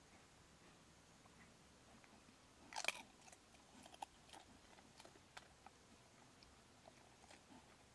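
A pig rooting in the ground and chewing: faint, scattered crunching clicks, with a louder burst of crunching about three seconds in.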